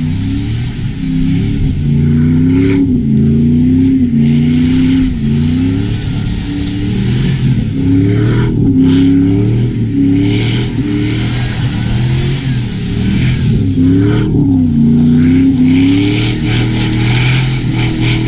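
Vehicle engine revving up and down over and over, its pitch rising and falling every two to three seconds, with a steady hiss over it.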